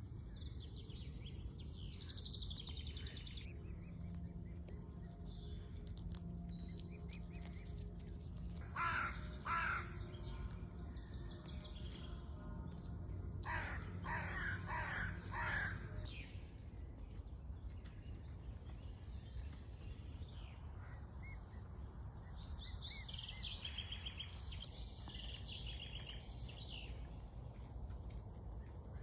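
Birds calling: a larger bird gives two loud calls about nine seconds in and four more a few seconds later, over higher chirping from small birds at the start and near the end, with a steady low background noise.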